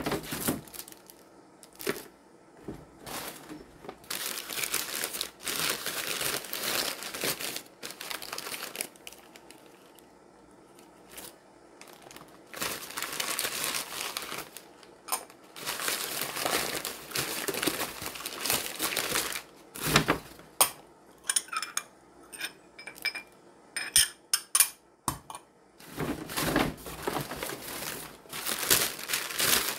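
Plastic packaging being crinkled and torn open by hand, in repeated bursts of rustling. About two-thirds of the way through there is a run of sharp, light clicks.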